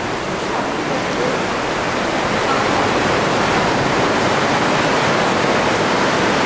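Ocean surf washing into a sea cave, heard as a steady rushing noise of water.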